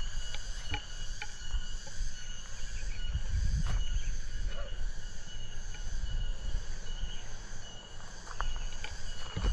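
Steady chorus of insects chirring, several high tones holding throughout, over a low rumble and a few faint clicks.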